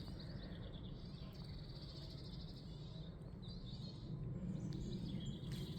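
Woodland songbirds singing, several short rapid trills one after another, over a steady low rumble.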